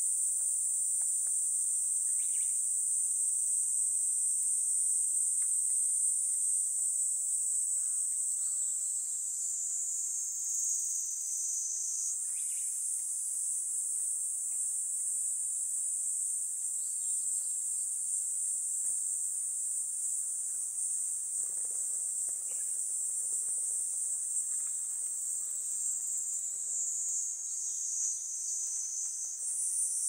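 A steady, high-pitched chorus of insects shrilling, with faint scattered crackles from kindling and thin wooden boards catching fire in a small fire grill.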